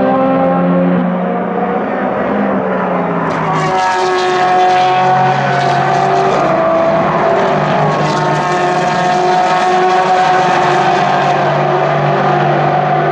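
Several endurance racing car engines running hard at once through a corner, their notes overlapping and stepping up and down in pitch with gear changes. Crackling exhaust pops come in about a third of the way in and again past the middle.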